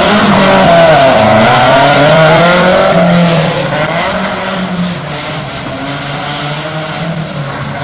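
Rally car running hard through a tight course, its engine revving up and down with tyres squealing. It grows fainter about five seconds in as it pulls away.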